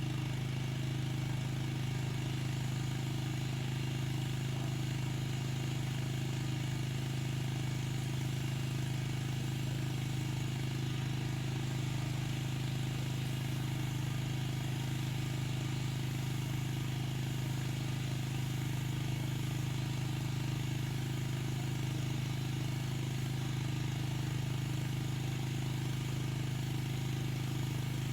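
Pressure washer running steadily, a constant low engine or pump hum with a hiss of spray over it.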